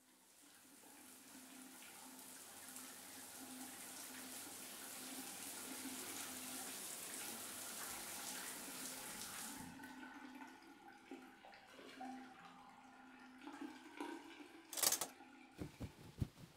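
Shower water running in a steady hiss that fades in and stops abruptly about ten seconds in as the shower is turned off. A sharp clunk and a few quick knocks follow near the end.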